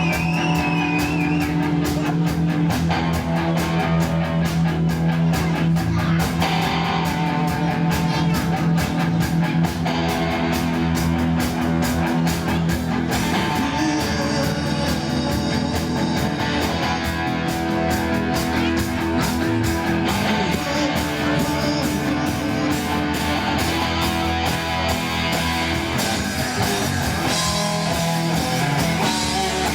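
Rock music with electric guitar chords over a steady drum beat, without vocals: an instrumental passage of a rock band's song.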